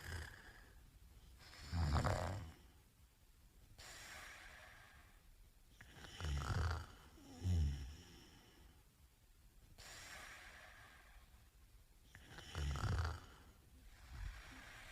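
A man snoring in his sleep: loud, low, rattling snores at intervals of a few seconds, two of them close together near the middle and a weaker one near the end, with quieter breath noise between.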